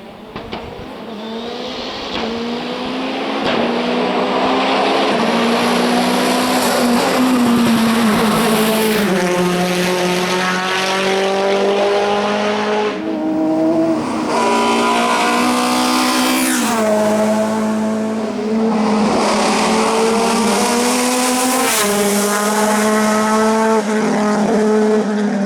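Hillclimb race car engine at high revs, growing louder over the first few seconds as it approaches. The engine note climbs, drops sharply and climbs again several times, as with gear changes.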